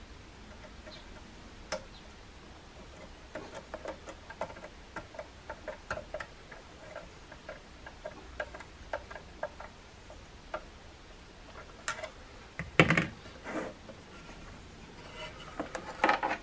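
Small metallic clicks and taps of a screwdriver and spanner working a nut and screw on the metal frame of a vintage radio loudspeaker. One louder knock comes about thirteen seconds in, and a short clatter near the end as the loudspeaker's metal cover is handled on the bench.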